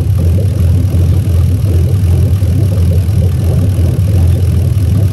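Lexus 2JZ-GE VVT-i 3.0-litre straight-six engine idling steadily, warmed up to operating temperature.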